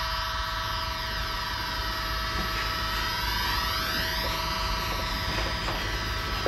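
Electronic spacecraft-cabin sound effect: a steady hum of several held tones, with higher tones gliding slowly up and down over it.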